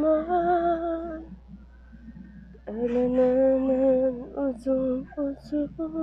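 A person humming a tune: a long held note, a pause, a second long note, then a string of short notes at changing pitches.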